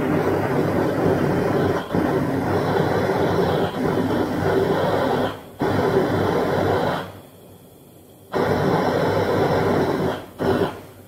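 Gas brazing torch flame blowing steadily as it heats copper parts, with a few brief breaks and a quieter gap of about a second past the middle.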